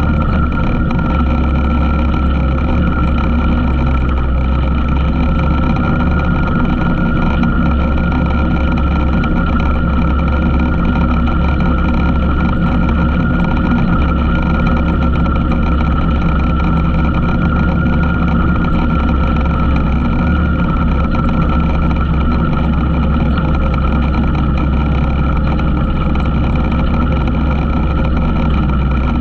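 ATV engine running at a steady speed with an even whine and no change in pitch.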